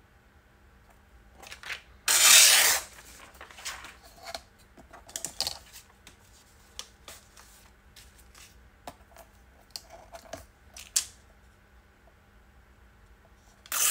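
A sheet of vellum torn along a ruler's edge in one quick rip about two seconds in, followed by paper rustling and light taps as the torn pieces and the ruler are handled.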